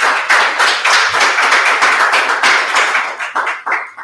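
Small audience applauding, many hands clapping densely, thinning to a few last separate claps near the end.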